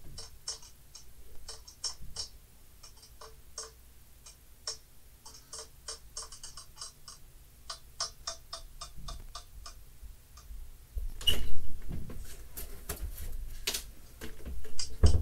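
Light, irregular clicking, several clicks a second, with no steady beat. About eleven seconds in, louder rustling and knocking noise starts.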